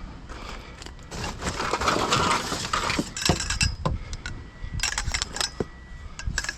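Metal scrap clattering and clinking as it is handled: a rush of scraping, then a run of sharp knocks and clinks.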